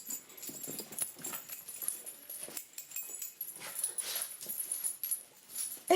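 Pet dogs moving about excitedly as they wait for a treat, with scattered faint clicks and rustles.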